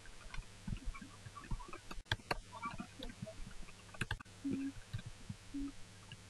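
Computer keyboard keys clicking at an irregular pace as text is typed, over a steady low hum.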